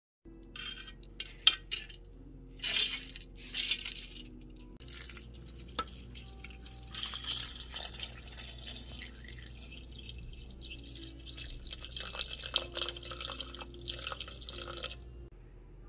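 A few sharp glassy clinks, then water poured from a glass jug in a steady stream onto soaked rice in a Thermomix's stainless steel bowl for about ten seconds, stopping near the end.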